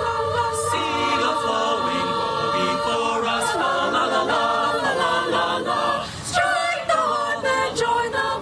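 Mixed-voice high school chamber choir singing a Christmas carol a cappella, unaccompanied voices in parts, with a brief dip in level about six seconds in.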